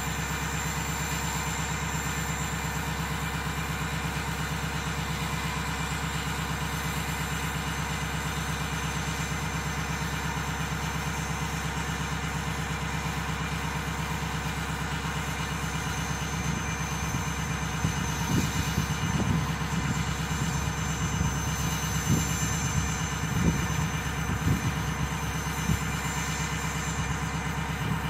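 Ford 6.0-litre Powerstroke V8 turbodiesel idling steadily at the exhaust tip, warming up after a cold start. Over the second half, uneven low thumps come and go over the idle.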